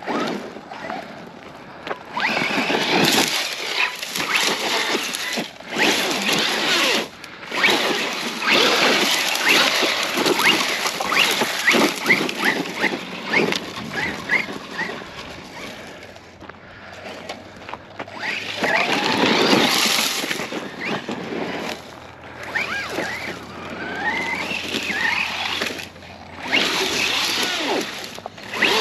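Arrma Outcast 4S brushless RC monster truck driving over gravel and dry brush: its motor whine rises and falls with the throttle in short bursts, over a continuous crackle of tyres on dirt and weeds.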